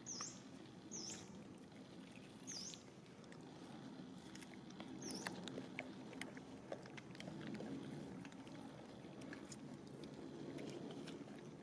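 Baby rhesus macaque chewing food: faint, scattered small clicks over a steady low rumble. Four short high chirps come in the first five seconds.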